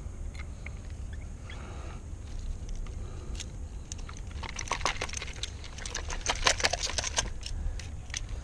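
Quick small clicks and taps of plastic and metal as a handheld digital fish scale and its metal clip are handled, with a dense flurry of clicks in the second half, over a steady low rumble.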